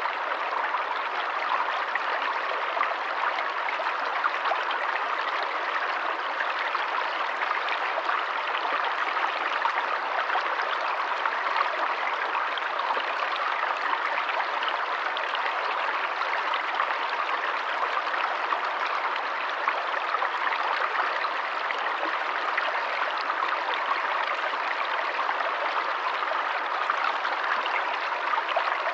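Forest stream: running water flowing and trickling steadily, an even rushing splash with no breaks.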